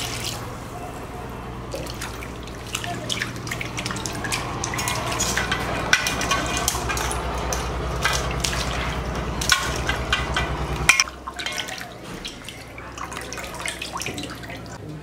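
Water splashing and dripping as raw fish are washed by hand, with scattered sharp clicks and knocks. Under it runs a steady low hum that cuts off about eleven seconds in.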